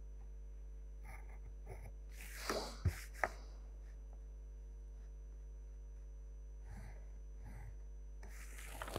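A pencil scratching faintly on a drawing sheet over a steady low electrical hum. A short breathy rustle comes about two and a half seconds in, followed by two light clicks.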